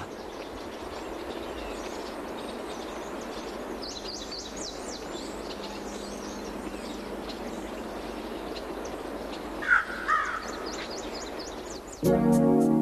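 Woodland ambience with small birds chirping. About ten seconds in come two louder, harsher bird calls, and music begins near the end.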